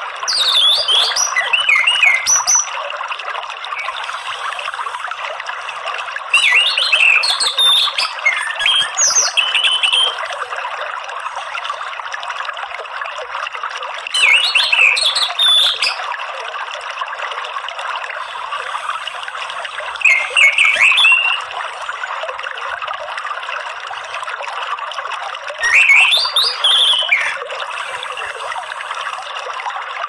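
Orange-headed thrush singing short phrases of quick, varied whistled notes, in five bursts a few seconds apart. Under the song runs a steady rush of flowing water.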